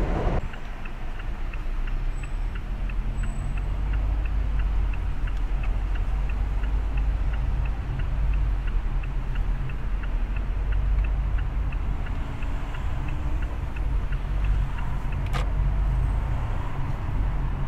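A car's turn-signal indicator ticking evenly, about three ticks a second, over the steady low rumble of the car driving. A single sharp click comes about fifteen seconds in, and the ticking stops just after it.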